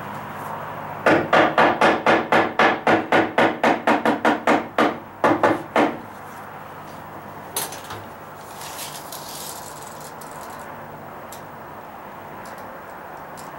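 Hammer knocking a wooden floor joist sideways: a fast, even run of about twenty blows, about four a second, lasting some five seconds, then one lone knock a couple of seconds later. The joist is wedged in but not nailed, and it is being tapped over to bring the 3-4-5 diagonal out to 60 inches and square it up.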